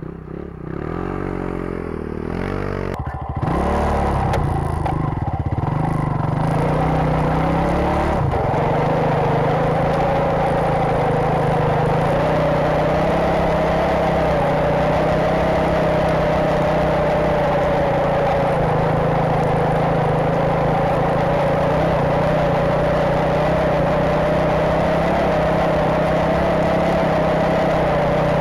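Enduro motorcycle engine on a snowbike track kit, revving unevenly as the bike pulls away, then from about eight seconds in running at a steady high pitch under hard load as the track churns through deep powder. The rider says it goes through loose snow in fifth gear with the throttle fully open.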